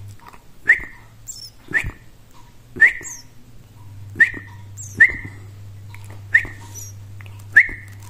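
Eurasian tree sparrow nestling giving short, sharp begging chirps while being hand-fed, seven of them roughly a second apart, over a low steady hum.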